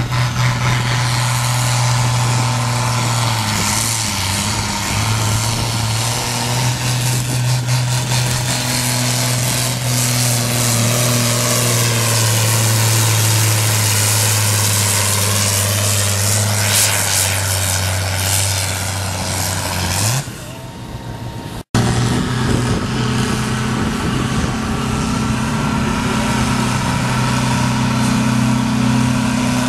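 Volvo BM farm tractor's diesel engine running hard under load, pulling a weight-transfer sled: a steady deep drone that rises briefly and then drops away about twenty seconds in. After a short break, a tractor diesel is again running steadily under load.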